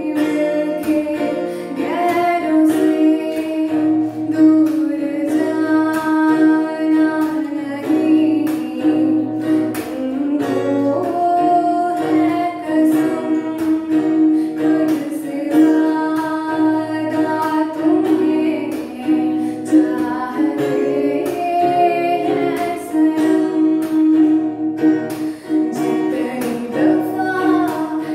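A teenage girl singing a melody with musical accompaniment of plucked strings over a steady low tone.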